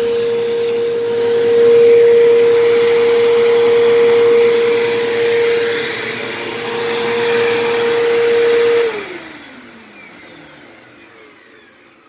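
Bissell PowerTrak Revolution upright vacuum running with a fairly loud, steady motor whine, then switched off about nine seconds in, the whine falling in pitch as the motor spins down. The owner puts the loudness and the higher pitch down to dried-out, worn bearings in the motor or brush roll.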